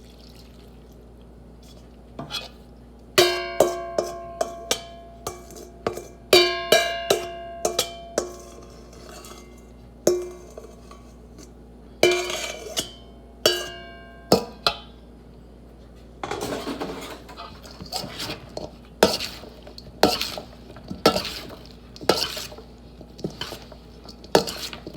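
A utensil knocking against a ringing bowl, a dozen or more sharp clinks in quick runs, as dressing is worked onto a salad. About sixteen seconds in, it changes to a spoon scraping and knocking around the bowl as the salad is mixed.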